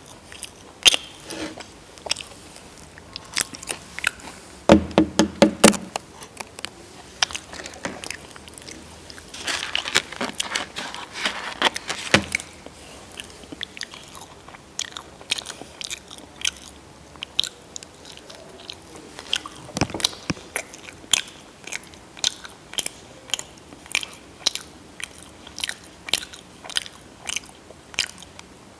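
Close-miked chewing and crunching of food: crisp, sharp mouth clicks and crackles, dense around the middle and settling into about two a second toward the end.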